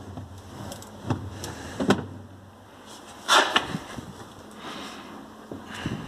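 Plastic drawer of a DEXP RF-MN552DSY/BGI refrigerator being slid and handled, giving a few short knocks, the loudest about three seconds in.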